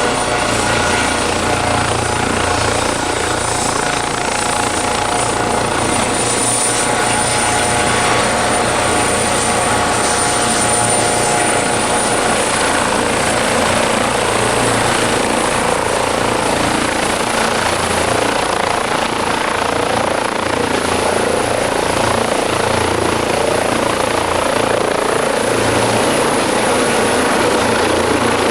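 Airbus Helicopters EC155B1 (H155) twin-turbine helicopter running steadily, its high turbine whine over the beat of the main rotor; the whine rises slightly about twelve seconds in.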